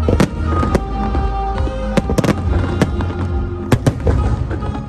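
Aerial firework shells bursting: about eight sharp bangs at uneven intervals, over loud show music with a heavy bass.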